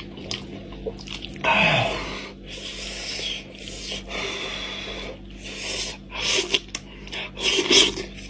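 Mukbang eating sounds: a man sucking and slurping soft braised goat-head meat and skin off his fingers, with wet chewing. The slurps come in about five hissy bursts.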